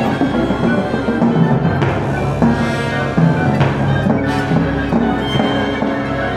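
A concerto for timpani and orchestra being played: pitched timpani strokes among dense, sustained orchestral notes, with a few sharp accents.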